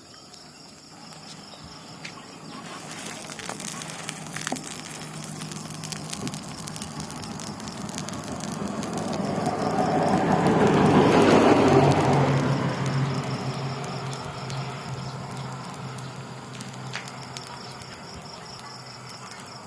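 A vehicle passing by: a rumbling noise that swells to its loudest about halfway through, then slowly dies away.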